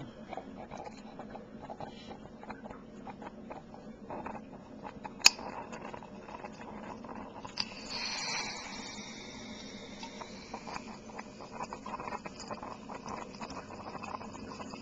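Oxyhydrogen (HHO) torch flame crackling with many small pops as it cuts into a metal can. There is one sharp, loud snap about five seconds in. From about eight seconds on, a steady high-pitched hiss joins the crackle.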